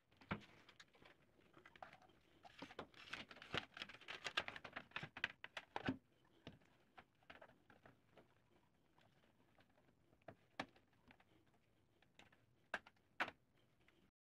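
Plastic key clicks from a Dell QuietKey SK-8000 keyboard: a dense run of quick taps lasting a few seconds, then scattered single clicks, with two sharper clicks near the end.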